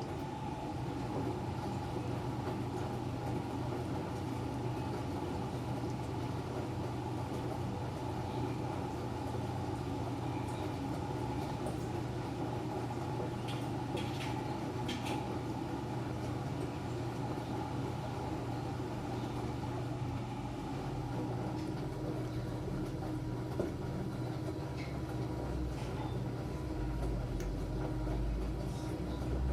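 Enxuta Júnior 2 kg washing machine running with a steady motor hum, a couple of light clicks about halfway through, and a deeper low rumble coming in near the end.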